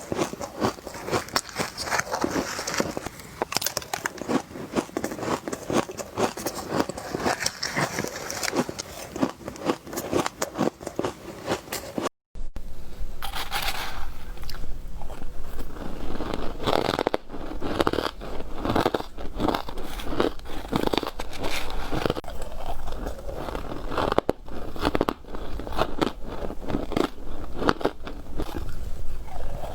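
Close-miked bites and chewing of frozen green-matcha ice: a dense run of powdery crunches and crackles. The sound cuts out for an instant about twelve seconds in, then the crunching goes on with a low hum underneath.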